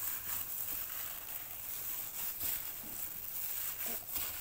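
A hand kneading a soft mashed potato and chicken mixture in a stainless steel bowl, making quiet squishing sounds with a few faint short knocks.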